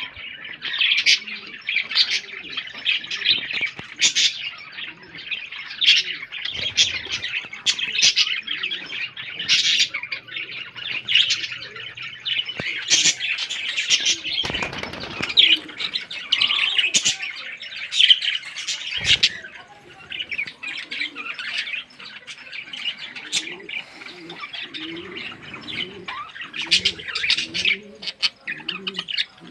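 A roomful of pet birds chirping nonstop in many high, overlapping calls. There is a brief flutter of wings about halfway through, and pigeons coo low underneath toward the end.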